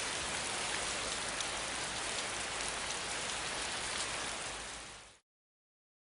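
Steady rain falling, an even hiss that fades out about five seconds in and then cuts to silence.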